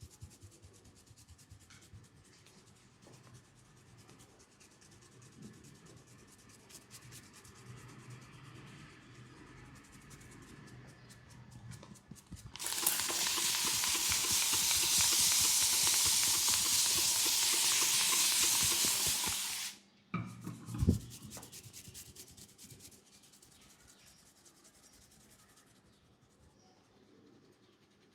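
Faint rubbing of hands over hair and skin during a head massage, then a loud steady hiss for about seven seconds that cuts off suddenly, followed by a couple of short knocks.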